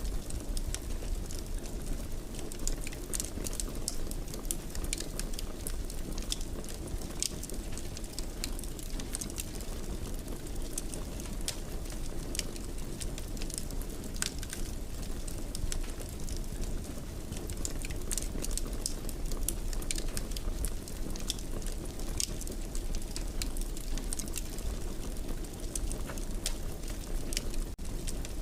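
Wood fire burning in a fireplace: a steady low rumble of the flames with frequent small crackles and pops scattered irregularly throughout.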